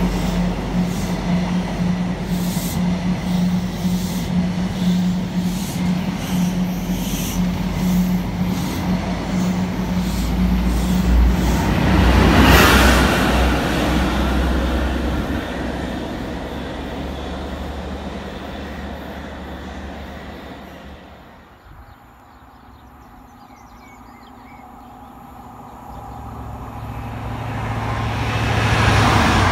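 Class 43 HST diesel power cars passing at speed, a steady engine drone over the rumble of the wheels on the rails. The trailing power car passes loudest about twelve seconds in, and the sound fades away. Near the end a second HST approaches and grows louder.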